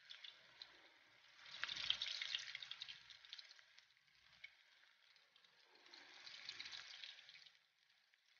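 Hot vegetable oil sizzling and crackling as balls of grated water yam deep-fry in a pot. The sizzle swells louder about two seconds in and again near the end.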